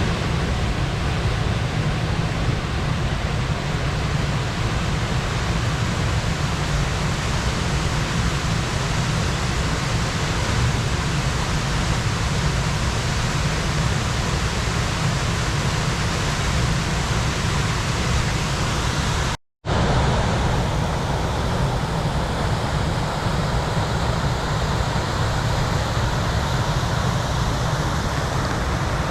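Waterfall pouring: a steady, loud rush of water with a deep rumble underneath. It drops out for a moment about two-thirds of the way through, then carries on slightly less bright.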